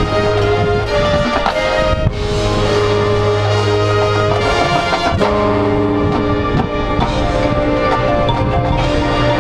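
Marching band playing its field show, loud and steady, with long held chords that change a couple of times, and percussion strokes.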